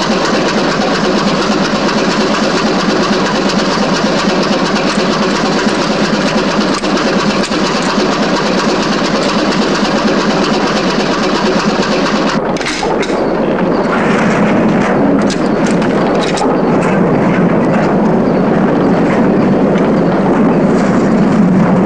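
A train running, heard from inside its cab: a loud, steady engine drone and rattle with wheel clatter. About halfway through, the hiss thins and scattered sharp clicks and knocks come through.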